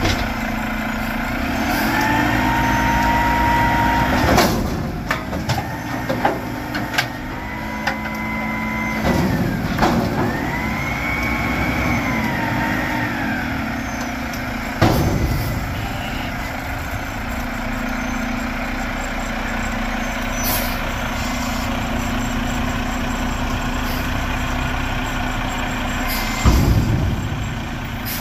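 Mack MRU garbage truck with a Heil Half/Pack front-loader body, its diesel engine revving to drive the hydraulics while the arms hold a container over the cab, with a whine that rises and falls and several metal bangs as the container is shaken out into the hopper. The engine then runs steadily, with a loud burst near the end.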